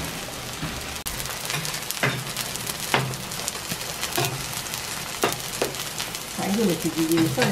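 Green onion pancake frying in oil on a flat griddle: a steady sizzle with scattered sharp crackles and pops.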